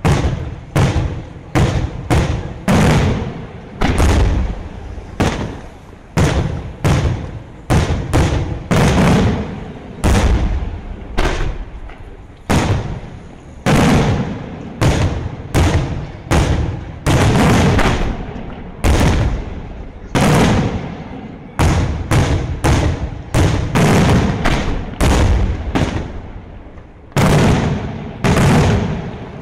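Daytime fireworks display: aerial shells bursting overhead in a rapid run of loud bangs, about one or two a second and sometimes in quick clusters, each bang trailing off before the next.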